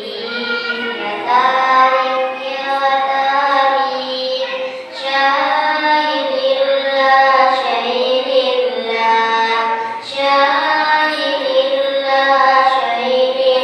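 A solo voice singing shalawat, the Islamic devotional chant, in long drawn-out notes that waver and slide in pitch, pausing briefly twice between phrases.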